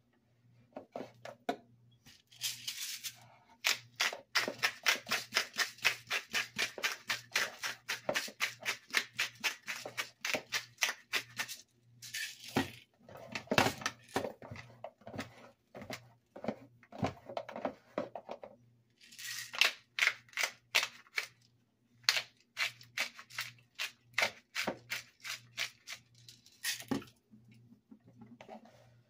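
Seasoning shaker rattled in quick rhythmic shakes, about four a second, in two long runs, with a pepper grinder being twisted in between.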